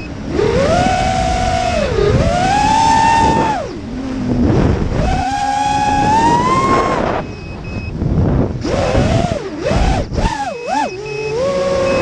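FPV racing quadcopter's electric motors and propellers whining, the pitch climbing and falling with the throttle. The pitch holds high for a few seconds at a time, drops twice, swoops up and down quickly several times near the end, then settles into a steadier tone.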